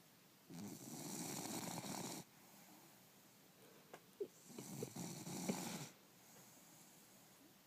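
Bulldog snoring: two long snores about four seconds apart, each lasting a second and a half, with a few short clicks just before the second one.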